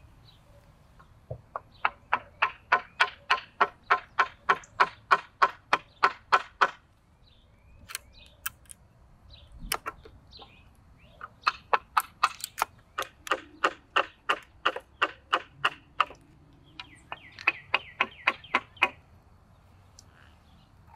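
A wooden baton tapping the spine of a fixed-blade knife, driving the blade into a peeled wooden stick. The light knocks come fast, about four to five a second, in three runs with short pauses and a few single knocks between them.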